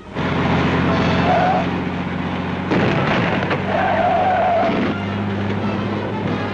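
Cartoon sound effect of a truck engine running in a steady low drone with road noise, and two wavering squeals: one about a second in, and a longer one around four seconds in.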